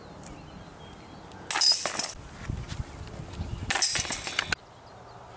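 Disc golf basket chains rattling as discs strike them: two loud metallic jangles, each under a second long, about two seconds apart.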